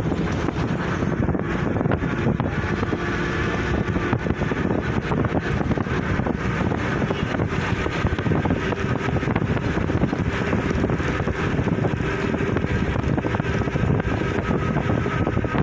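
Steady wind noise on the microphone over road traffic, a constant rushing with no breaks.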